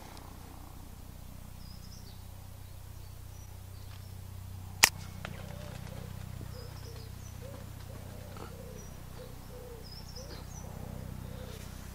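A single air rifle shot about five seconds in: one short, sharp crack that stands well above the background. Faint small-bird chirps come and go around it.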